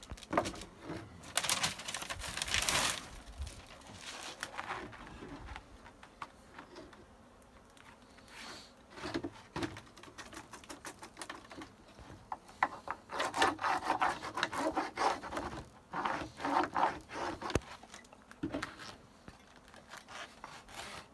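Rubbing, scraping and light tapping of a wooden hand tool and sheets of beeswax foundation being worked on a wooden table. It comes in two busy stretches, one about two seconds in and a longer one from about twelve to seventeen seconds.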